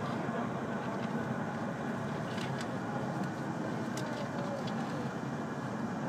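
Cabin noise of a W7 series Shinkansen train running into a station: a steady low rumble with a few faint clicks.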